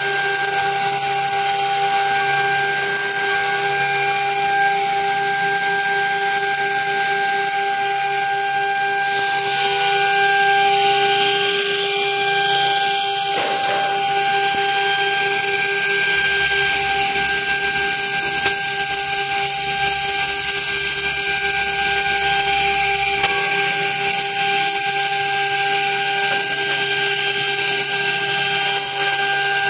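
CNC machine spindle running through a cut, a steady whine of several held tones over a hiss.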